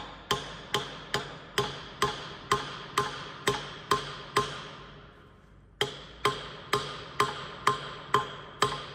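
Hammer blows on steel, about two a second, each ringing briefly; a pause near the middle, then a second run of blows. This fits the steel pin being driven into the freshly bored balance-beam bore.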